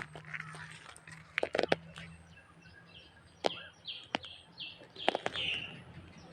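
Short high chirps, several a second through the second half, like small birds, with a few sharp knocks and a low steady hum underneath.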